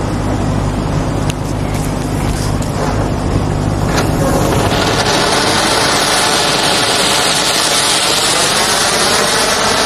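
A Hema anar (flower-pot fountain firework) is lit and, about halfway in, starts spraying sparks with a loud, steady hiss that builds and then holds.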